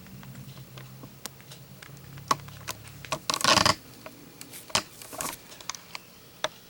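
Metal Zippo lighters being handled and set down: a string of small metallic clicks and clinks, with a short louder rattle about three and a half seconds in and another just past five seconds.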